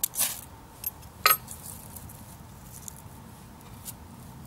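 Fire steel (ferro rod) scraped hard with a striker to throw sparks onto teasel-head tinder: a few short, sharp scrapes in the first second and a half, the loudest just over a second in, and a faint one near the end.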